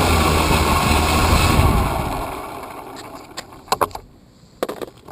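A motor vehicle's engine running, fading away over the first two seconds or so. Then a few short clicks and knocks near the end.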